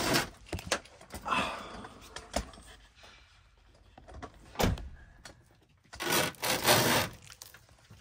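Electrical wires being pulled up through a hole in a Sprinter van's sheet-metal pillar channel, rustling and scraping as they drag through, with a few clicks, one sharp knock about halfway, and a louder stretch of scraping near the end.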